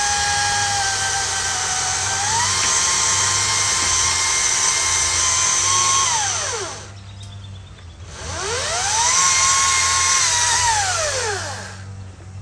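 Chainsaw run in two spells: each time the motor's whine climbs to a steady high pitch, holds for several seconds and winds back down. In the first spell the pitch sags a little, then jumps up about two seconds in, as under a cut that then frees.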